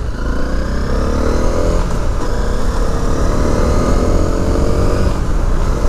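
Honda CRF trail bike's engine pulling through the gears, its pitch climbing in each gear and dropping at upshifts about two and five seconds in, over a steady wind rush.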